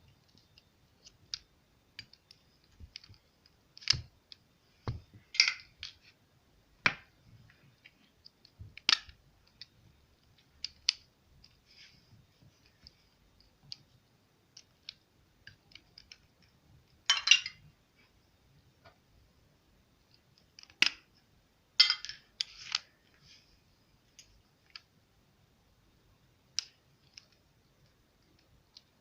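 Slime being mixed and pressed by hand, making irregular sticky clicks and pops, with a few louder crackling squishes.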